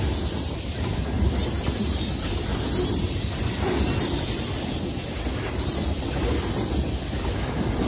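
Freight train cars (covered hoppers, tank cars and a gondola) rolling past close by, a steady rumble of steel wheels on the rails.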